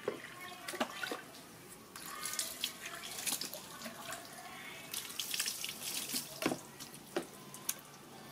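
Water splashing and dripping as a wet, soapy baby monkey is washed and rinsed by hand, with many small scattered splashes and drips.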